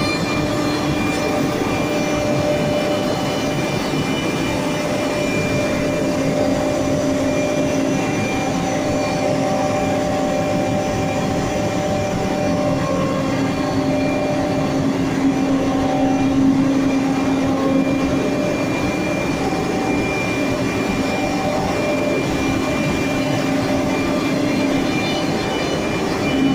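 Wimak Safir 2128 CNC router running: a steady mechanical hum and noise with several held whining tones as the head travels over the board. A low tone swells around the middle.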